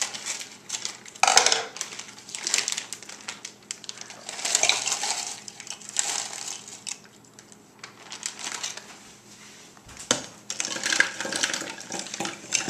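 Frozen berries and banana pieces clattering out of a plastic bag into a glass measuring cup, then tipped into a blender jar, in a run of irregular small hard clinks and rattles. There is a sharp burst about a second in and a hard click near the end.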